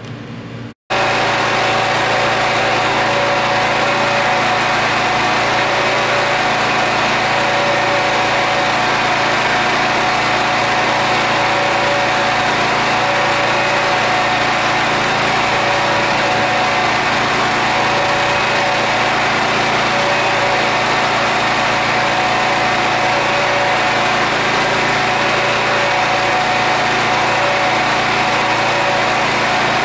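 Harbor Freight Predator 8750-watt inverter generator running at a steady speed: an even engine drone with a constant whining tone over it. It cuts in abruptly about a second in.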